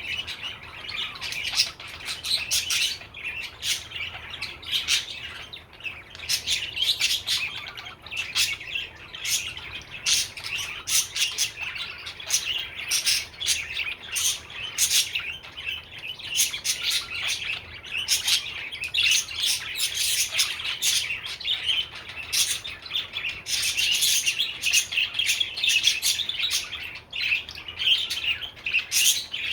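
Budgerigar warbling and chattering without a break: a dense run of quick chirps mixed with sharp clicks.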